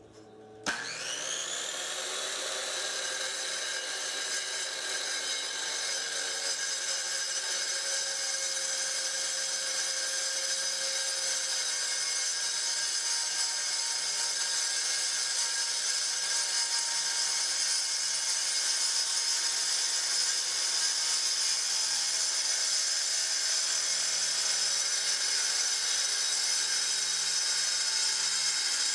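Circular saw with a diamond blade starting up about a second in, its whine rising quickly to speed, then running steadily as it cuts freehand through a granite countertop slab.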